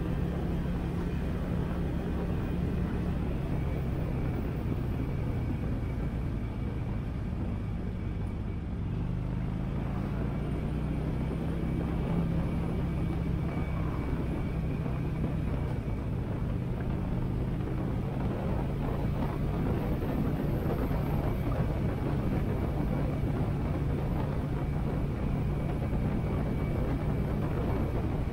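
Harley-Davidson Sportster 883's air-cooled V-twin running on the road, a steady low engine note with wind noise on a helmet-mounted camera; the note eases slightly about eight seconds in.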